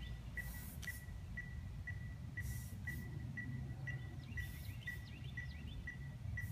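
Outdoor residential ambience: a high chirp repeating evenly about twice a second, with other birds chirping now and then. Short hissy buzzes come about every two seconds over a steady low rumble.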